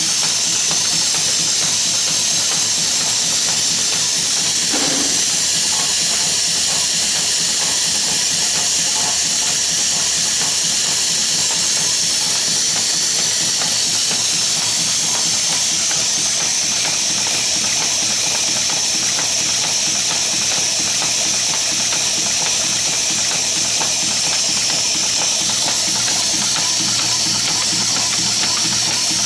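Automatic zipper slider assembly machine running on its own, pneumatic and fed by a vibratory bowl: a steady loud hiss over dense, rapid clicking and rattling.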